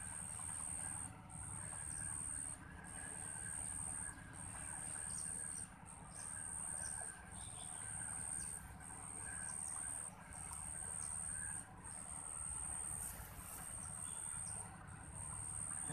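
An insect, such as a cricket or cicada, shrilling on one high steady note, broken by a short pause about every one and a half seconds. Faint bird chirps sound under it.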